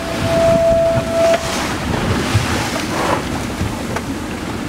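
Wind buffeting the microphone over lapping sea water, with a steady whistle-like tone for about the first second and a half.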